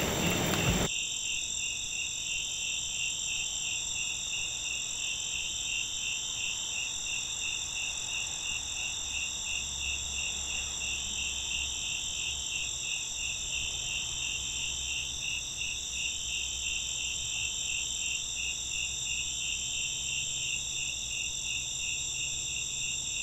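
Crickets chirping: a steady high trill with a regular chirp repeating about three times a second.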